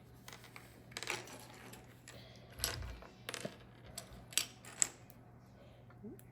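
Small plastic Lego pieces clicking and clattering as they are handled and pressed together, in a handful of scattered sharp ticks.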